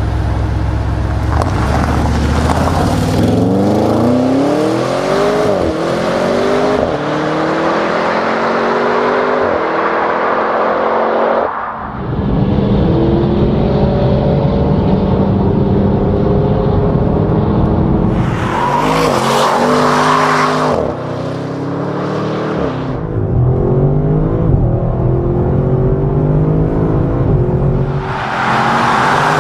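Audi RS6 Avant's twin-turbo 4.0-litre V8 accelerating hard, revs climbing and dropping back at each upshift, again and again. Twice a loud rushing noise rises over the engine for a couple of seconds.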